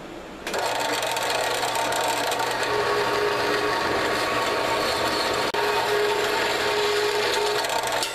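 Bandsaw cutting through 1/2 inch Schedule 40 steel pipe, a steady grinding rasp of blade on metal that starts about half a second in.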